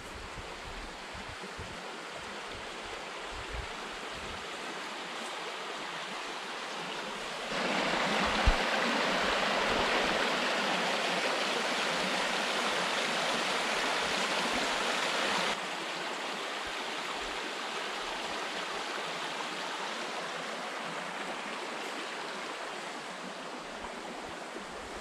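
Small stream rushing over rocks, a steady watery hiss that is clearly louder for about eight seconds in the middle, starting and stopping abruptly. One brief knock comes about a third of the way in.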